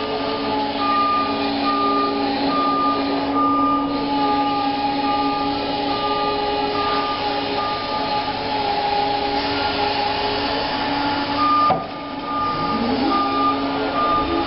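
Bendi articulating forklift at work: a steady motor and hydraulic whine under a warning beep that repeats about once a second. The beeping stops for a few seconds in the middle and then resumes, and near the end the motor's pitch rises as the truck moves off.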